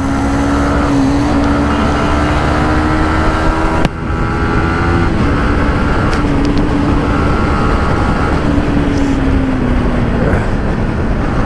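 Motorcycle engine under way at speed, its note climbing steadily, with a brief break about four seconds in as it shifts up a gear, over heavy wind rush.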